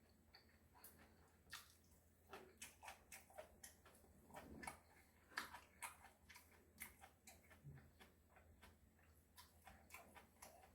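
Faint close-up eating sounds: chewing with scattered soft, wet mouth clicks and smacks at an irregular pace.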